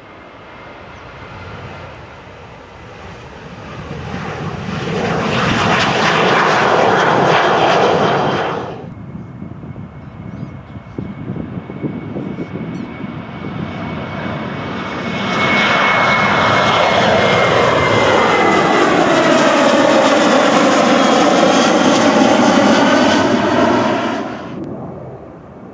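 Two Boeing 737-700 jets at take-off power. The first swells loud and is cut off abruptly about nine seconds in. The second grows loud as it passes, with sweeping, falling tones in the engine noise, and is cut off near the end.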